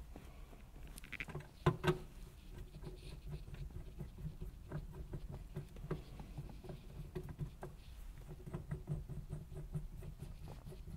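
Small clicks and knocks of a new billet shifter being worked by hand through the gears, the lever clacking in its gates. There are two louder knocks about two seconds in.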